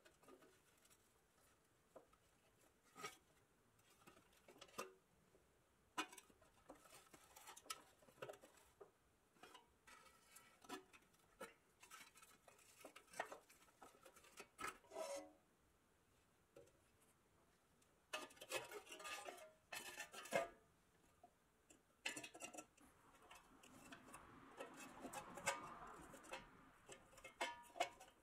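Faint scattered clicks and taps of pliers gripping and working the tabs of a rusted pressed-steel toy truck body, with longer bouts of metal scraping in the second half.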